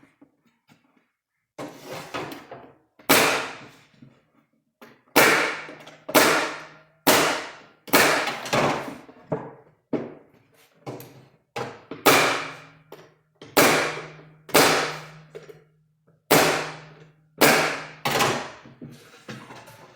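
Pneumatic crown stapler driving 1.5-inch, 16-gauge staples into the wooden rabbet-jointed corners of a beehive box: a string of sharp shots at irregular spacing, often in quick pairs, each with a short ringing decay. A low steady hum runs under the later shots.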